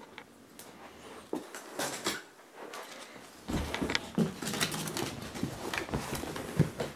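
Handling noise as a children's recliner chair is unpacked: rustling of tissue-paper packing with scattered knocks and clicks, busier about halfway through, and a few short squeaks, the sharpest near the end.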